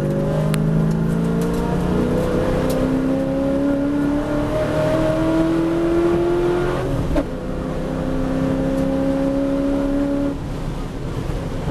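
V8 race car engine heard from inside the cabin, accelerating hard with its pitch climbing, a quick upshift about seven seconds in that drops the note, then climbing again. Near the end the engine note falls away as the driver comes off the throttle.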